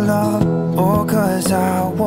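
Background music: a song with a melody line that glides up and down.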